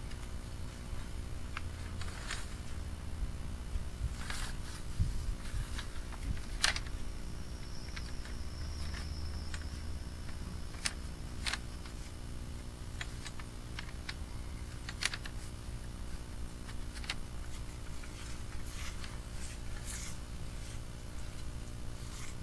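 Scattered light clicks and ticks over a steady low hum, from a sewer inspection camera's push cable and reel being handled as the camera is drawn back.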